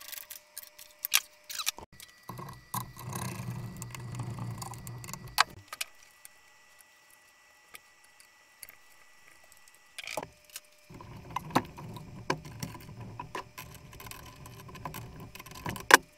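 Metal tools and drill-press parts being handled: an adjustable wrench and bolts clinking and knocking against the steel head as it is tightened and reassembled, with scattered sharp clicks, stretches of rubbing and handling noise, and a loud click near the end.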